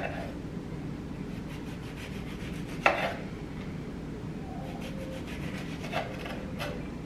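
Kitchen knife cutting the peel off a lemon on a wooden cutting board: soft scraping strokes of the blade through the rind, with one sharp knock of the knife on the board about three seconds in and lighter taps near the end.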